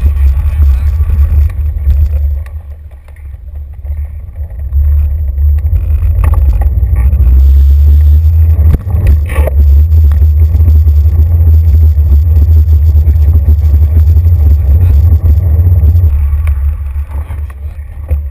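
Loud low rumble of bicycle tyre rolling noise and road vibration carried through a handlebar-mounted camera, strong even with a rubber sleeve on the mount. It eases off for a few seconds early on and again near the end, with a single knock about nine seconds in.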